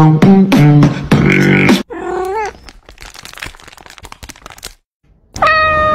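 Rhythmic beatbox-like vocal sounds for about two seconds, then a gliding vocal note and a stretch of faint scattered clicks and crackles. Near the end a held pitched tone drops in pitch as it ends.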